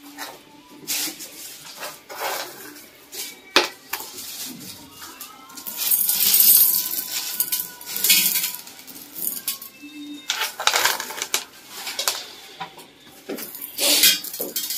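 Dishes, pots and metal utensils clattering and clinking irregularly, with a few louder scraping, rattling spells.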